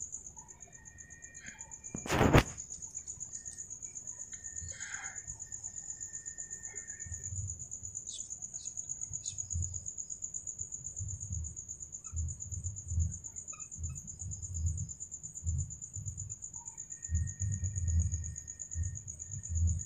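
Night insects chirring in one continuous, finely pulsed high-pitched trill. A single sharp knock about two seconds in is the loudest sound, and low, dull thumps come and go through the rest.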